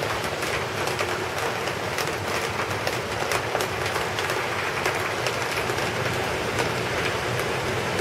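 Heavy rain falling steadily: a continuous rushing hiss with many sharp, close drop taps scattered through it.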